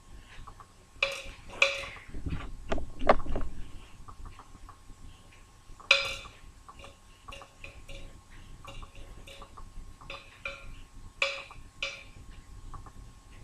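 Scattered light clicks and taps from handling a large makeup brush and a compact of bronzing powder: a few near the start, one about six seconds in and two near the end, with small soft ticks in between.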